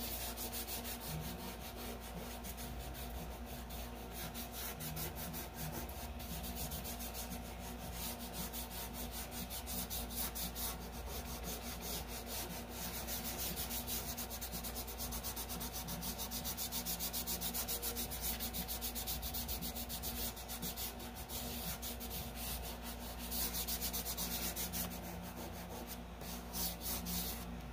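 Fingertips rubbing chalk pastel into paper in quick back-and-forth strokes, blending the chalk to cover the paper. The dry scrubbing is steady, with two more vigorous stretches, about a third of the way in and near the end.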